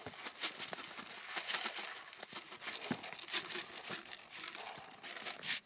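Plastic feed bag crinkling and rustling as it is handled and its contents are tipped out into a wooden feeding trough, with a louder crinkle near the end.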